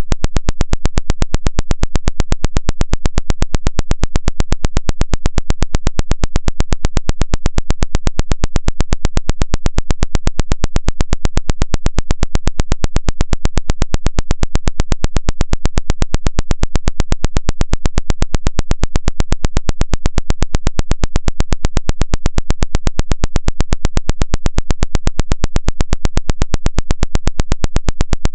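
Loud synthetic vibration tone: a rapid, even pulsing hiss, several pulses a second, steady throughout. It is played through a phone's speaker to shake water out of its charging port.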